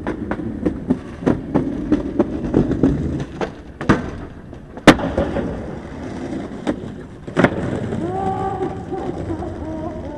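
Skateboard rolling, with a rumble from the wheels and a quick run of clacks and knocks. A loud sharp crack of the board comes about five seconds in and another at about seven and a half. Near the end a pitched drone comes in, sliding slowly down.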